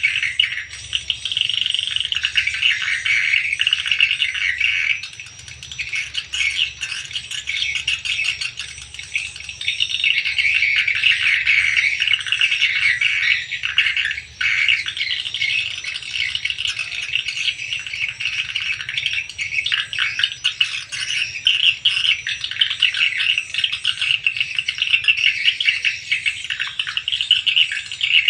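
Dense, continuous twittering of swiftlets, many rapid chirps overlapping, easing off briefly a few times.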